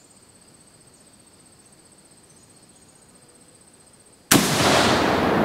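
A single shot from a PTRD-41 14.5×114 mm anti-tank rifle about four seconds in. It is a sudden loud blast, followed by a long fading boom and echo.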